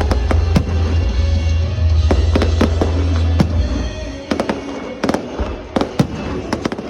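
Fireworks display: sharp bangs and crackling bursts over a deep low rumble. The rumble drops away after about three and a half seconds, leaving a dense run of quick cracks and pops.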